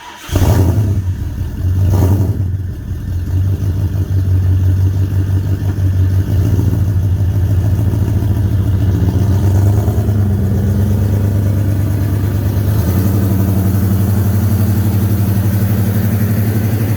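Holden 304 5.0-litre V8 started on fresh oil after an oil and filter change: it catches about half a second in, revs briefly around two seconds in, then settles to a steady idle.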